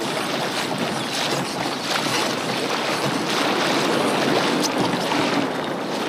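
Steady rush and splash of seawater along the hull of a pedal-driven fishing kayak under way, mixed with wind.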